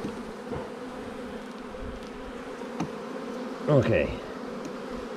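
Honeybees from an open hive buzzing steadily, a continuous hum with a clear pitch from the many bees on the exposed frames. A single light click about three seconds in.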